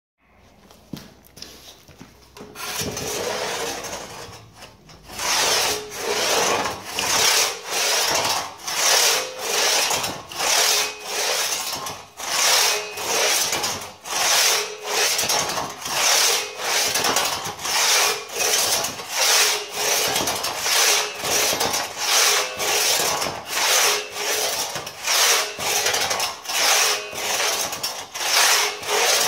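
Pegtooth bucking crosscut saw cutting through a log by hand, its teeth rasping through the wood. After a few seconds of quieter starting strokes it settles into a steady back-and-forth rhythm of about one stroke a second.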